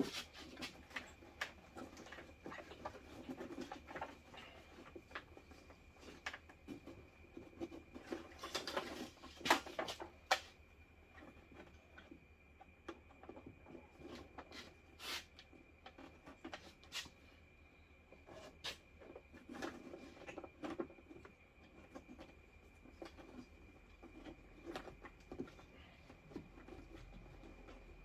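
Faint, scattered clicks, rustles and scrapes of hands working on electrical wiring, shrink tubing and tape, with a denser flurry about a third of the way through. A faint steady high whine sounds underneath.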